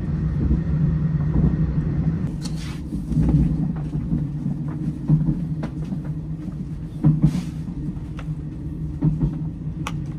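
Steady low rumble inside a CNR sleeper carriage of a Thai express train, the running noise of the coach. Light knocks and a few soft rustles of bedding sound here and there on top of it.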